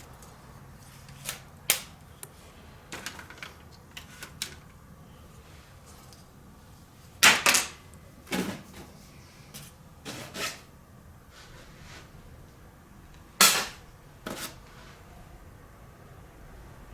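Scattered clicks and knocks of laptop motherboards and other scrap circuit boards being handled and set down on a pile, with two louder clacks, about seven and thirteen seconds in.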